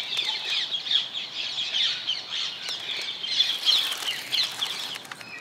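A flock of wild birds chirping and calling over one another, many short overlapping calls, thinning a little near the end.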